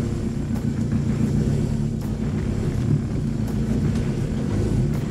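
Ford Ranger pickup's engine running at low, steady revs as the truck crawls over a dirt off-road track, with a few faint knocks.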